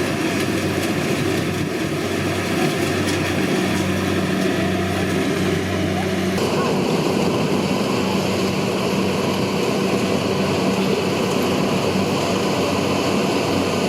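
Kubota DC-70 rice combine harvester running, a steady engine drone with the noise of the working machine, changing abruptly about six seconds in.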